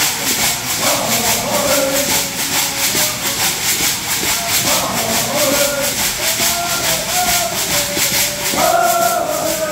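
Stomp dance song: voices singing in call and response over the steady, evenly spaced shaking of the women's shell-shaker leg rattles. The singing swells near the end.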